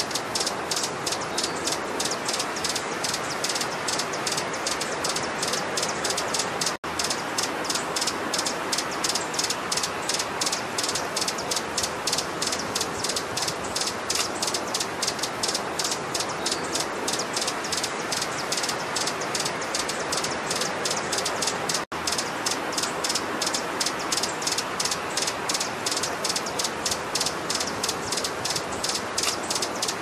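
Hummingbird calls: high, dry chips repeated steadily about four or five times a second over a constant hiss, in the looped style of a bird-training (masteran) recording. The sound drops out for an instant twice.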